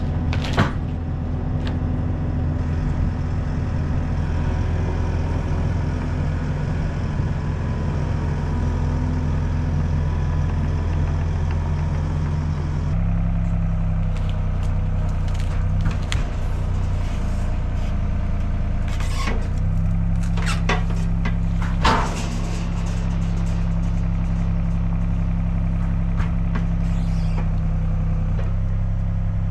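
An engine running steadily, stepping to a new speed about 13 seconds in and again about 19 seconds in, with a few sharp clanks and knocks.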